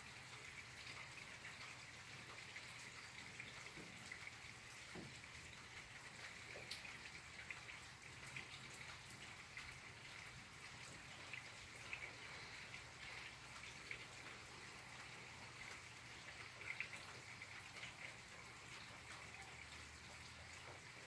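Faint light rain falling, with scattered drops ticking.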